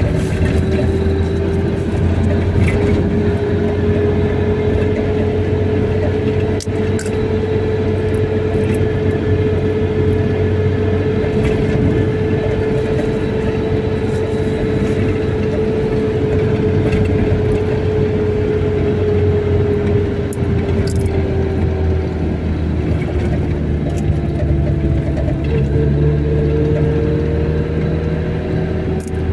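A car being driven at a steady pace: continuous engine and road rumble, with a steady whine that rises and falls slowly with speed.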